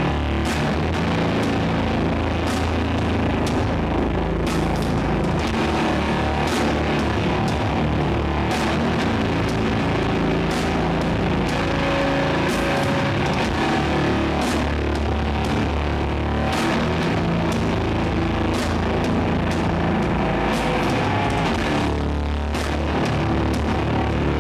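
Doom metal band playing live: loud distorted guitars and bass holding heavy low chords under drums, with cymbal crashes roughly once a second.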